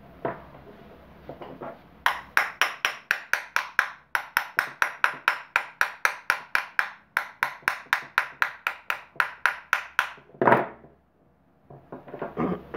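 Rapid, evenly spaced taps on the rear end cover of an electric fan motor, about five a second, in three runs separated by short pauses, as the cover is driven into place. One louder knock follows near the end, then brief handling noise.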